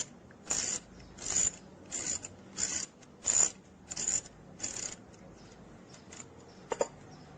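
Steel tap being turned backwards out of a freshly cut thread in aluminium with a tap wrench: a short scraping rasp about one and a half times a second, stopping about five seconds in, followed by a single sharp click near the end.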